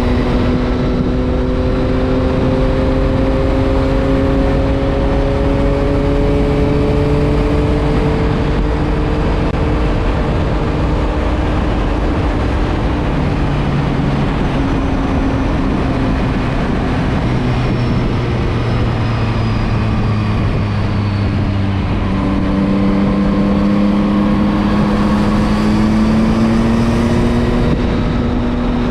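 Yamaha MT-09 three-cylinder motorcycle engine running at cruising speed under heavy wind rush on the microphone. The engine note sinks gradually through the middle, then climbs again about two-thirds in as the bike speeds up.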